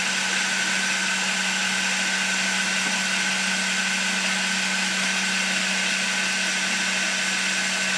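Milling machine spindle running steadily with no load: a constant hum with a thin high whine over it and no change in speed.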